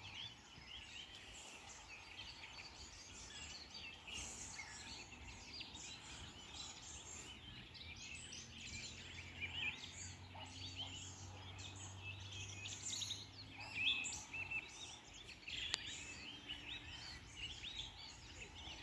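Many small birds chirping and singing at once, a dense, irregular chorus of short high calls, over a faint steady low hum.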